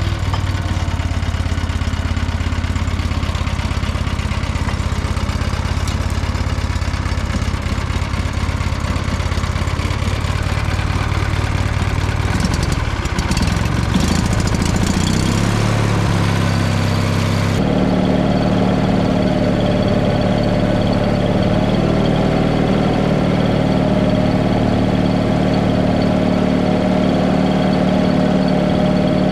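Vermeer 206 stump grinder's 20 hp Kohler engine running steadily; about halfway through the engine speeds up, and the sound changes abruptly to a steady, higher-pitched running.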